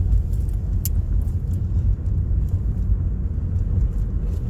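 Steady low rumble of a car heard from inside the cabin, engine and road noise, with one light click about a second in.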